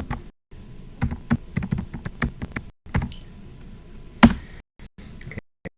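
Typing on a computer keyboard: quick runs of key clicks, with one louder tap about four seconds in.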